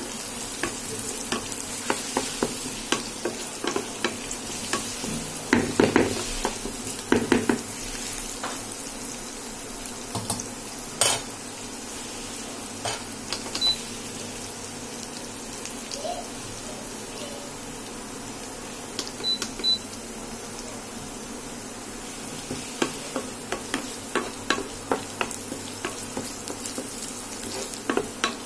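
Chopped onion, capsicum and carrot sizzling in oil in a non-stick frying pan, with a spatula scraping and knocking against the pan in spells of stirring. The stirring stops for a while in the middle, leaving the steady sizzle, and picks up again near the end.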